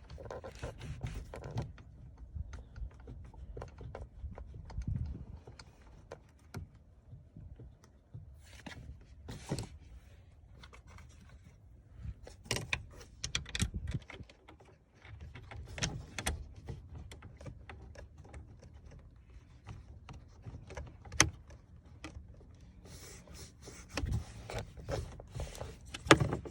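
Scattered small metallic clicks, taps and knocks of bolts being fumbled into the side-mirror mount inside the car door, over rustling and low handling rumble.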